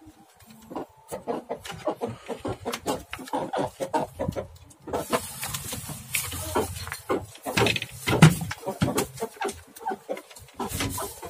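Hand trigger spray bottle pumped over and over in quick clicks, misting liquid onto a pelung chicken's face, with a spray hiss from about halfway on. The chicken's calls are mixed in.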